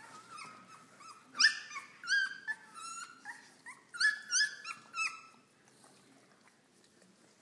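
Three-week-old Airedale terrier puppies crying, a rapid run of short, high-pitched squeaks and whimpers, some rising in pitch, that dies away about five seconds in.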